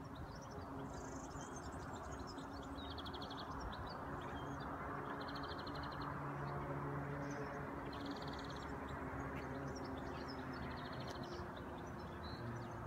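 Insects chirping in short, rapid pulsed buzzes repeated about every two seconds, with a few fainter high chirps, over a steady background of wind and outdoor noise.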